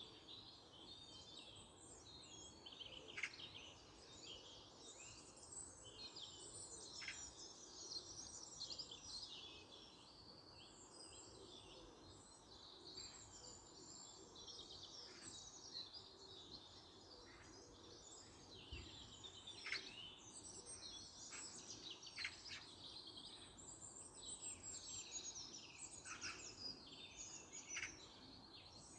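Several songbirds singing and chirping at once, a dense, faint chorus of quick trills and chirps, over steady low background noise.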